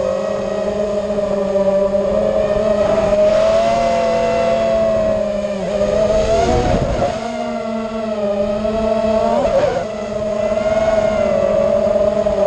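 Eachine Wizard X220 FPV racing quadcopter's motors and propellers whining in flight, the pitch wavering with the throttle. The whine drops and swerves about six seconds in as the quad rolls over, and swerves again briefly about nine and a half seconds in.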